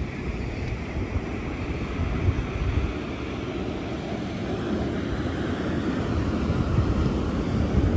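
Wind buffeting the microphone in uneven gusts, over the steady rush of ocean surf.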